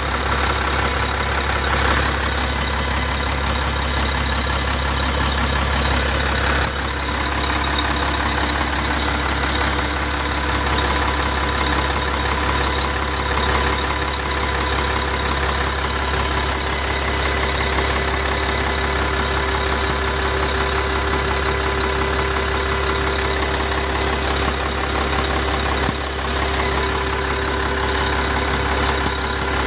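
SDLG wheel loader's diesel engine idling steadily, heard close up in the engine bay with its fan and drive belts turning.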